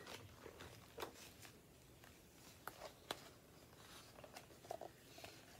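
Faint rustle and a few soft clicks of a picture book's paper pages being turned and handled, in an otherwise near-silent room.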